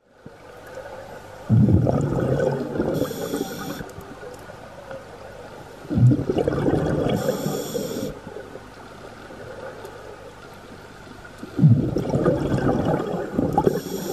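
Scuba diver breathing through a regulator underwater: three bursts of exhaled bubbles, one about every five seconds, each a couple of seconds of bubbling, with a short high hiss from the regulator after each.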